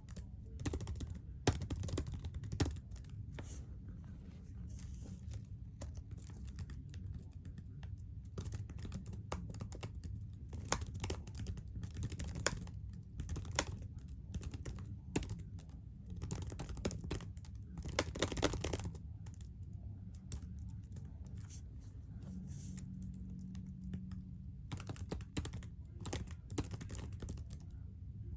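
Computer keyboard keys being tapped, loud, sharp clicks at an irregular pace, some in quick flurries, over a steady low hum.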